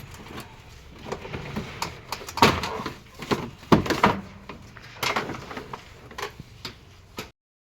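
Irregular knocks and clatters with a few sharp bangs, like handling metal parts, ending in an abrupt cut to silence near the end.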